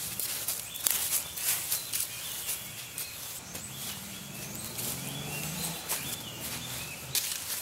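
Shoes stepping and pressing down on loose soil and dry leaf litter, a run of irregular crunches. Small birds chirp now and then.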